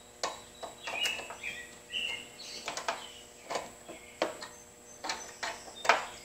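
Irregular sharp metallic clicks and taps of hand tools working on a Lawn-Boy mower's governor adjustment pin: locking pliers turning the pin and its nut being tightened down. Short high chirps come in between about one and three seconds in.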